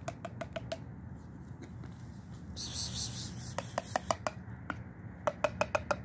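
Dry cat food dropped by hand onto concrete, the pieces landing in quick runs of sharp clicks, in three bursts. A bag rustles briefly in the middle.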